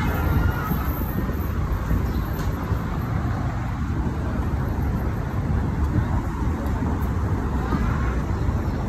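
Busy city street ambience: steady traffic noise with a low rumble from passing cars. The tail of a siren fades out in the first second.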